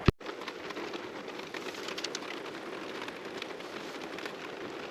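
Steady rain falling, an even patter of many drops with scattered sharper taps.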